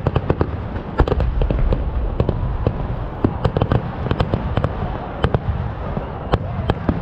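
Kerala temple-festival fireworks: a dense, irregular barrage of sharp bangs, several a second, over a continuous low rumble.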